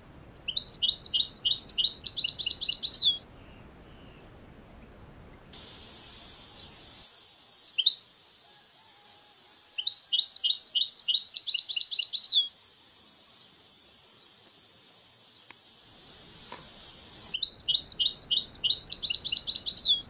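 A songbird singing the same short phrase three times, about eight seconds apart: a fast run of high notes lasting about three seconds that grows louder and ends in a flourish. A steady high hiss runs through the middle part.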